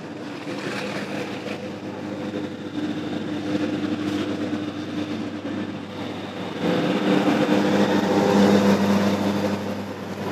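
A motor vehicle's engine running with a steady hum, louder for a few seconds in the latter part.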